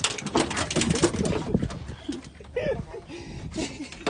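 Agitated piglet grunting: a fast, harsh run of grunts for about the first second and a half, then a few scattered grunts.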